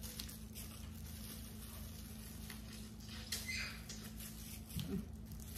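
Quiet eating sounds: small clicks and crackles of cooked blue crab shell being picked apart with plastic-gloved hands, and a short slurp about three and a half seconds in as she sucks meat and sauce from her fingers.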